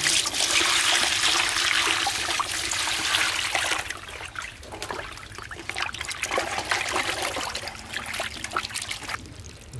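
Water poured from a steel bucket onto cut hilsa fish pieces on a metal tray, splashing as hands rub and rinse them. The pour is heaviest for the first three or four seconds, then gives way to quieter sloshing and splashing that stops near the end.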